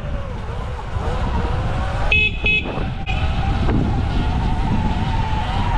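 A Sur-Ron X electric dirt bike on the move, with steady wind rumble on the microphone and a light motor-and-drive whine that rises slightly in pitch toward the end. Two quick horn beeps sound about two seconds in.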